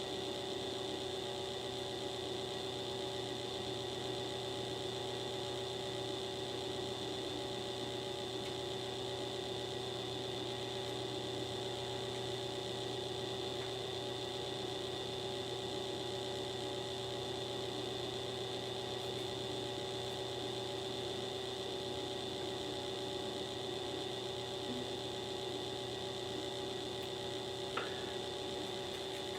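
Steady background hum made of several constant tones over a low hiss, unchanging throughout, with one faint click near the end.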